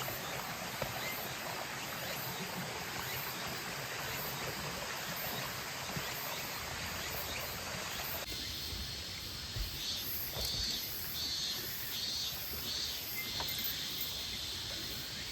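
A mountain stream rushing steadily. About halfway through, the water drops much lower and crickets chirp in an even pulse of about two chirps a second.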